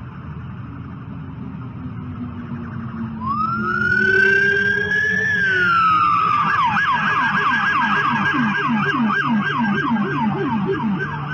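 Police siren starting about three seconds in: a rising wail that holds, then drops and switches to a fast yelp of about two and a half sweeps a second, over a steady background of traffic noise.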